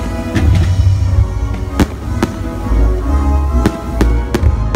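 Fireworks going off with several sharp bangs in quick succession, over loud show music with a deep bass.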